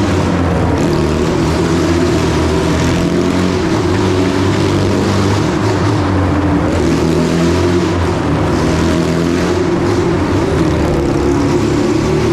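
Motorcycle engines running steadily as the machines are ridden round the vertical wooden wall of a wall-of-death drum.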